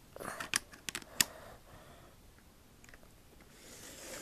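A handful of light, sharp plastic clicks and taps in the first second and a half, from small HO-scale model train cars and couplers being handled on the track, then a soft hiss near the end.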